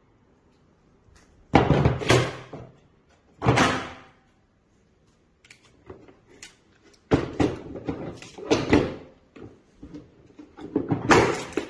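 Milwaukee PACKOUT hard-plastic tool tray being handled: bursts of knocking and scraping plastic, loudest about a second and a half in and again near the end.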